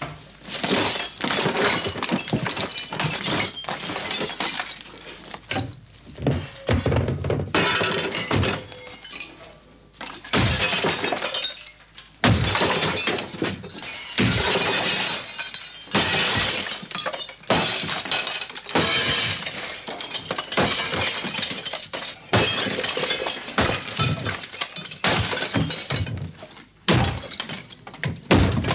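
A wooden dressing table and its mirror glass being smashed with repeated heavy blows: glass shattering and clinking, wood cracking and splintering, with brief pauses between bursts of strikes.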